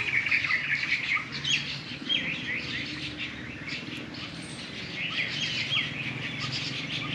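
Several small birds chirping and calling in the tree cover, a dense run of short, quick sweeping notes, over a faint steady low background hum.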